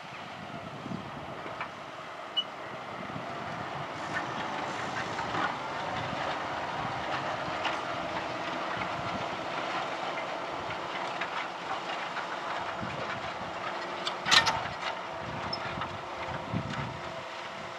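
Fendt 720 tractor's six-cylinder diesel engine running steadily while ploughing, with scattered rattles and knocks and one sharp, loud knock about fourteen seconds in.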